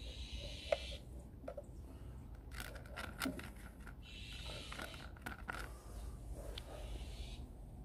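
Scattered light clicks and scraping handling noises, over a steady low outdoor rumble.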